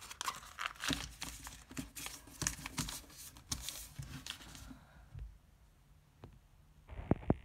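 Thin origami paper crinkling and rustling as a creased, partly folded model is unfolded and flattened by hand. The crinkling dies down about two-thirds of the way through, and a few sharp taps come near the end.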